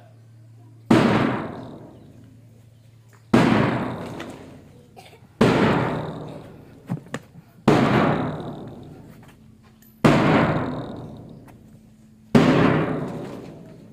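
Bass drum struck with a padded mallet: six single beats about two and a half seconds apart, each ringing out and fading before the next. The slow beat marks time for the children's PT drill.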